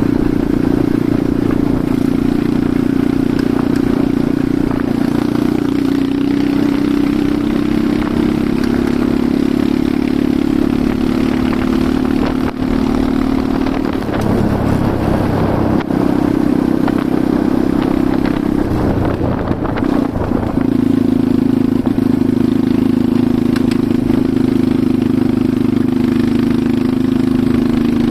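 Enduro motorcycle engine running steadily under way. Its note shifts and wavers about halfway through and again about two-thirds through, then settles back to the same steady pitch.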